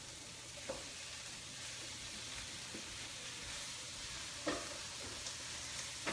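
Chopped chicken breast sizzling steadily as it goes into a hot frying pan of olive oil, onion and garlic. Three sharp clicks come from the utensil and board as the chicken is scraped in, about a second in, near the middle and at the end.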